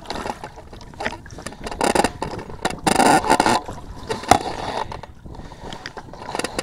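Large fish thrashing in a landing net at the water's surface, splashing in irregular bursts, the longest about three seconds in.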